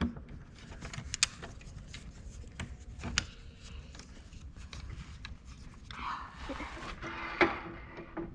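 Scattered clicks and knocks of metal tools and parts being handled, with the sharpest about a second in, about three seconds in and near the end, and a scraping rustle from about six seconds on.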